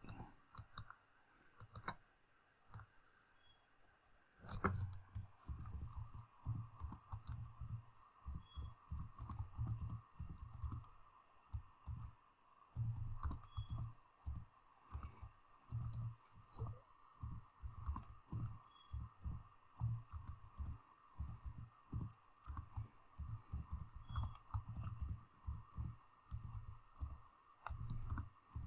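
Typing on a computer keyboard: a few single clicks, then from about four and a half seconds in, irregular runs of keystrokes with short pauses between words.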